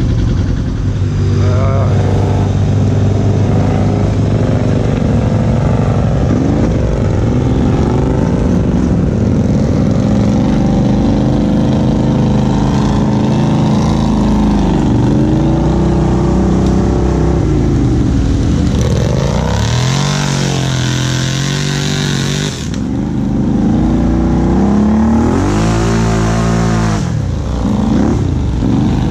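Can-Am Outlander XMR 1000 ATV's V-twin engine, with an aftermarket Big Gun exhaust, running under a rider in mud: a steady drone at first, then rising and falling again and again as the throttle is worked. Two harder runs up the revs come in the last third.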